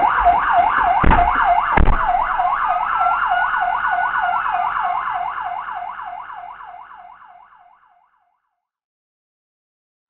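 Police siren on yelp, a fast rising-and-falling wail about four times a second, with a slower single rise and fall of a second wail over it a couple of seconds in. Two sharp thumps come about one and two seconds in, and the siren fades out about seven seconds in.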